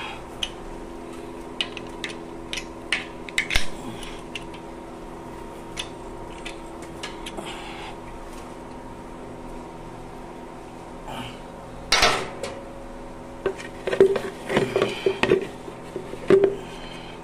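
Metal clinks and clanks of a spanner working on the oil plug of an ELGI 3 HP air compressor's crankcase, opened to drain the oil. Scattered light taps come first, then a burst of louder clanks in the last few seconds, over a steady hum.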